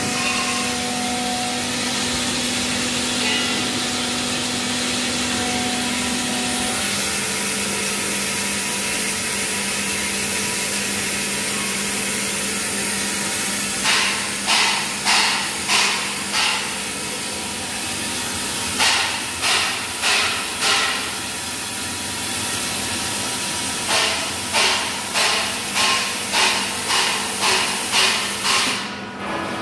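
Pneumatic dry garlic peeling machine running: a steady loud hiss of compressed air with a faint hum. From about halfway in come three runs of rhythmic air blasts, about two a second, as the machine pulses air through the garlic.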